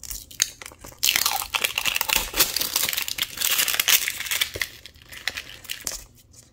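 Paper wrapper of an LOL Surprise ball crinkling and tearing as it is pulled open. There are scattered crinkles, then a dense run of crackling from about a second in to past the middle, then a few more crinkles.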